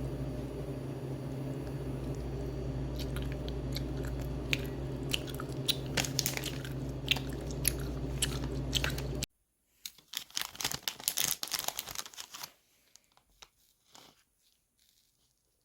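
A person biting and chewing crunchy food close to the microphone, over a steady hum at first. After a sudden cut about nine seconds in, a second run of crunching comes, dense at first, then thinning out and stopping.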